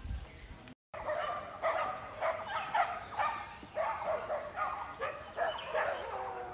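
A dog barking and yipping over and over, about two short barks a second. It starts right after a brief silent gap under a second in.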